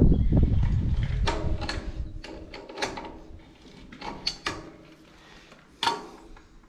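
Hand tools and metal engine parts on a small Briggs & Stratton engine being handled: a heavy rustle at first, then a string of sharp metallic clicks and clanks, a few with a short ring.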